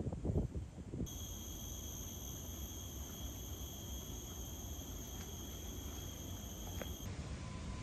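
An insect singing one steady, high-pitched note that starts about a second in, holds for about six seconds and stops abruptly, over a steady low outdoor rumble.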